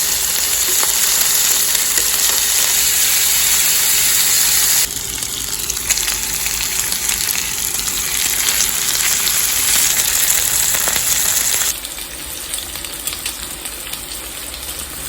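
Pork jowl sizzling as it cooks on a hot surface, a steady dense hiss with small crackles. It drops abruptly in level twice, about five and about twelve seconds in.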